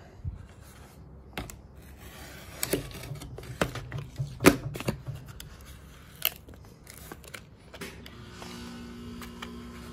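Product packaging being cut open and handled: a scatter of sharp clicks and snips with rustling in between.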